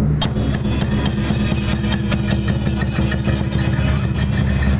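Chinese dragon-dance percussion playing a fast, continuous beat: a deep drum rumble with many sharp cymbal strikes.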